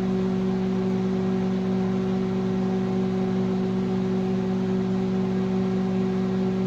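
Microwave oven running, a steady low electrical hum with fan noise, as it heats a bowl of oatmeal at 40% power.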